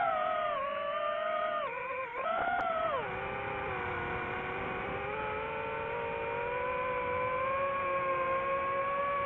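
FPV quadcopter's motors and propellers whining, the pitch shifting with the throttle: held for a couple of seconds, dipping sharply about three seconds in, then climbing slowly. A rushing noise runs underneath.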